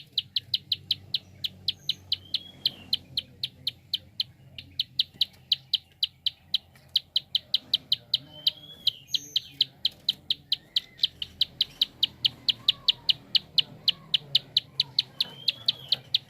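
Prenjak (prinia) giving its rapid clicking call: sharp, high 'klik' notes at about five a second, with a couple of short pauses, and a few faint chirps of other birds behind.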